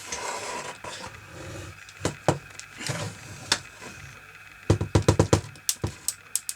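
Small clicks and taps of a screwdriver and a loose screw against the plastic of a laptop's screen frame, as a screw that will not stay on the screwdriver is worked free. The loudest part is a quick run of rattling taps about five seconds in, and there is a breathy noise in the first second.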